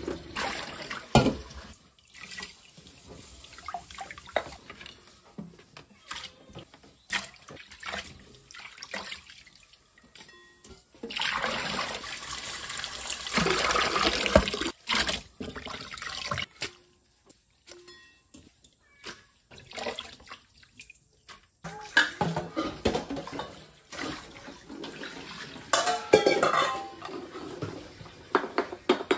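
Tap water running into a stainless steel bowl and sink while small fish are swished and rinsed by hand, with clinks and knocks of metal bowls and a wire colander against the sink. The water runs steadily for a few seconds near the middle and comes in shorter splashes elsewhere.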